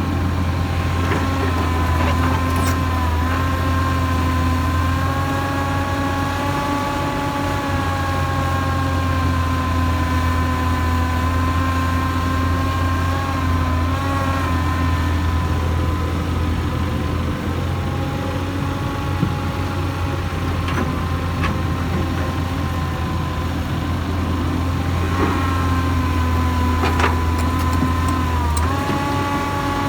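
Hyundai Robex 220-9SH excavator's diesel engine running steadily under a deep hum, with a hydraulic whine whose pitch dips and shifts every few seconds as the machine works, and a few faint knocks.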